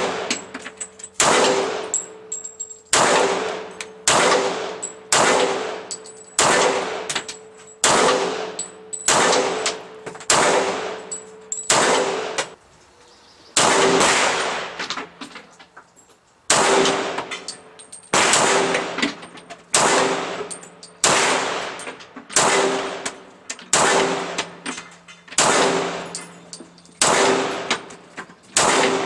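STI 2011 Edge .40 S&W pistol fired shot after shot at a steady pace of about one a second, each report followed by a metallic ring. The rhythm pauses briefly about twelve and fifteen seconds in.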